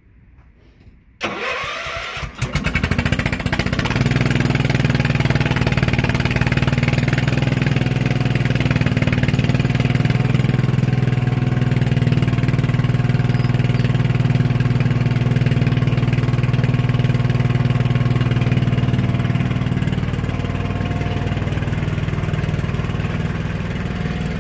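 Small tracked snow-plow vehicle's engine starting about a second in with a short rough burst, then catching and running steadily. It grows a little quieter near the end as the machine moves off.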